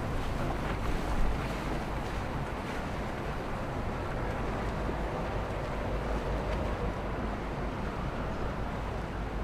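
Boat engines running amid wind buffeting the microphone and the wash of water, a steady rumbling noise with a brief louder surge about a second in.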